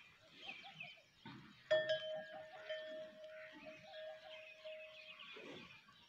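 A clear ringing tone starts suddenly about two seconds in and holds steady for about three and a half seconds, over small birds chirping.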